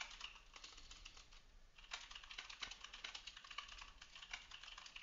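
Faint typing on a computer keyboard: runs of quick key clicks, with a short pause between the first and second seconds, then a denser run to the end.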